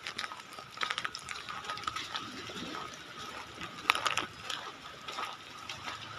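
Rough sea water washing and sloshing on a debris-strewn shore, with irregular crunching clicks of footsteps on gravel and storm debris.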